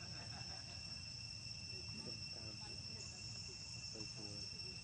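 Insects chirring steadily in the surrounding vegetation, a continuous high-pitched drone made of two even tones.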